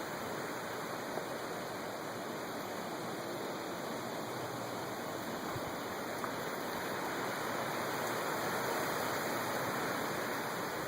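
Steady rushing of wind and rain from Hurricane Isaac's early bands, swelling slightly in the last few seconds.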